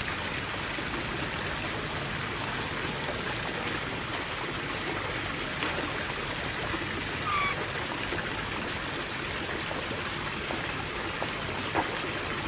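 Steady rush of running water, with a single short bird call about seven seconds in.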